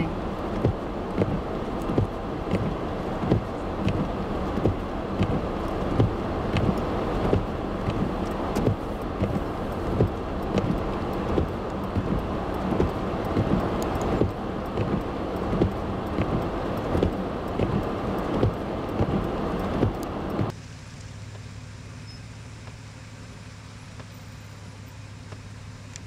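Car interior noise while driving slowly on a snowy street: engine and tyre noise with a regular tick about every two-thirds of a second. About twenty seconds in it cuts off suddenly to a much quieter steady low hum.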